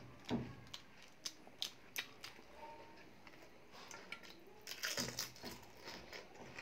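Close-up eating of pani puri: chewing, a few short crisp cracks of puri shell, then a louder wet burst of crunching and slurping about five seconds in as a water-filled puri goes into the mouth.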